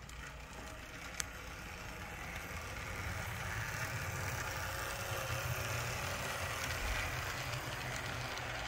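HO scale model train, headed by a model GP40 diesel, running on the track: a steady low rumble with track noise that grows louder over the first few seconds and then holds. A single sharp click about a second in.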